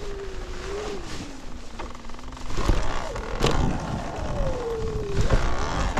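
Talaria Sting electric dirt bike's motor whining, its pitch sliding up and down with the throttle, over wind noise. From about two and a half seconds in there are sharp clunks and rattles and the whine comes back, sliding down in pitch.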